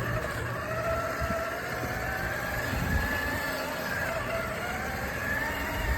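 A vehicle running steadily: a low rumble with a faint whine that drifts slowly up and down in pitch.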